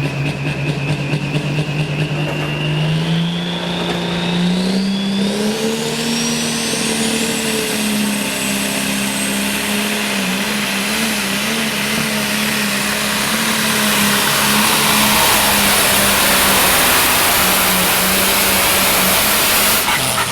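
Modified farm pulling tractor's turbocharged engine throttling up under load. The engine note and a high turbo whine rise over the first few seconds. The engine then holds at high revs, growing louder toward the end, and drops off suddenly near the end as the throttle is pulled.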